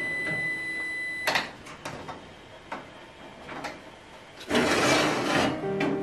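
Oven timer beeping one long, steady tone, which signals that baking is done, cut off by a click as the oven door opens. A few clicks and knocks follow, then a metal baking tray scrapes out along the oven rack rails for about a second, the loudest sound here.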